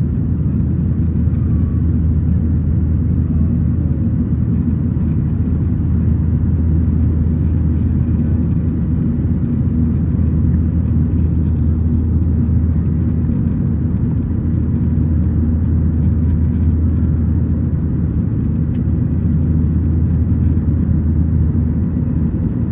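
Boeing 737 cabin noise heard from a window seat: a steady, low engine and airflow rumble with a constant deep hum underneath, unchanging throughout.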